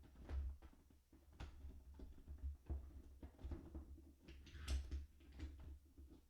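Scattered light clicks and knocks of a Keurig K-Mini's plastic body being handled as its power cord is tucked into the machine's cord storage, over a low hum.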